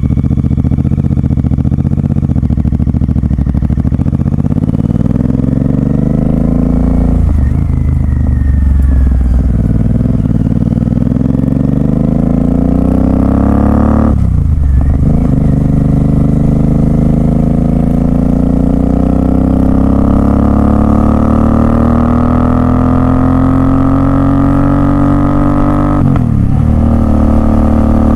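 Royal Enfield Continental GT 650's parallel-twin engine through a Red Rooster aftermarket exhaust, pulling hard through the gears: the revs climb steadily, drop sharply at three upshifts and climb again after each.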